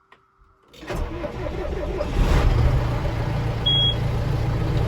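John Deere tractor's diesel engine starting about a second in and then running steadily, with a short high beep midway. It is run with the hydraulic oil drained and the drain plug left out.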